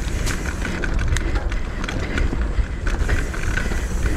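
Mountain bike riding fast down a rough dirt trail, recorded on the rider's point-of-view camera: wind buffets the microphone with a steady low rumble, and the bike rattles and clicks over the rough ground.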